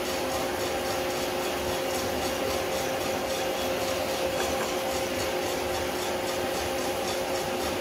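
Drum coffee roaster running mid-roast, before first crack: a steady motor and fan hum under the even hiss and rustle of peaberry coffee beans tumbling in the rotating drum.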